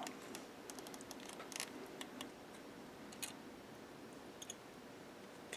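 Faint, irregular clicks and light scrapes of an X-Acto hobby knife scoring a plastic model-kit roll cage, cutting a groove without going all the way through so the part can be snapped apart.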